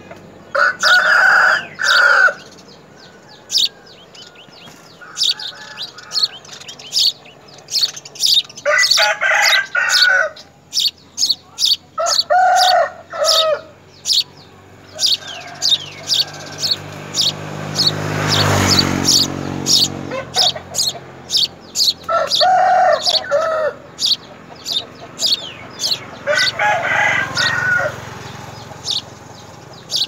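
House sparrow nestlings chirping rapidly and persistently from the nest, begging. Louder, lower calls from another bird break in about five times, and a low rumbling swell of noise rises and fades about two-thirds of the way through.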